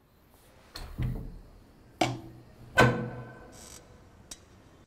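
Three sharp hits about a second apart, each with a deep ringing tail, the third the loudest, followed by a short hiss and a light tick near the end: cinematic impact sounds under a film's opening title.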